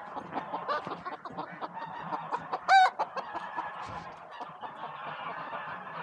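Flock of chickens clucking and chattering steadily, with one loud, short call about three seconds in.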